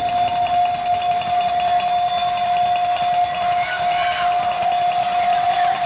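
Last-lap bell rung rapidly and without pause for several seconds, one steady ringing tone, signalling the final lap of the race.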